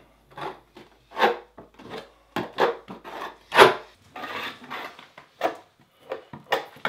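Putty knife scraping over Wedi foam building board, spreading and smoothing Wedi joint sealant along the seams. It makes a run of short, irregular scraping strokes, roughly two a second.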